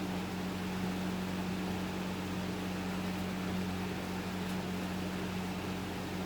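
2001 Hampton Bay Carriage House 52-inch five-blade ceiling fan running at a steady speed: a constant motor hum under an even rush of air.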